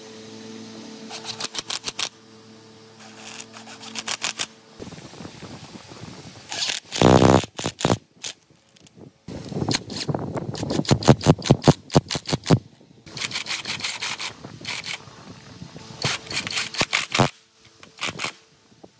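Cordless impact driver hammering bolts home into an old electric motor's cast-iron end cover, in a series of short bursts of rapid clicking with pauses between them.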